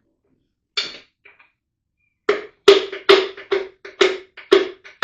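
Hammer strikes ringing on the 350 small-block Chevy engine as a piston and rod are tapped out of the bore. There is one knock, then a quick run of about eight strikes, roughly three a second.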